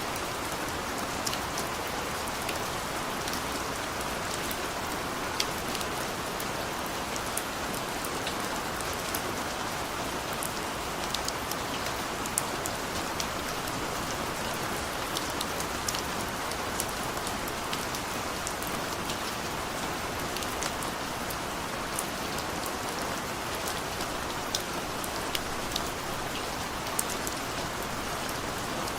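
Heavy rain falling steadily, with many individual drops ticking sharply and irregularly on a nearby surface.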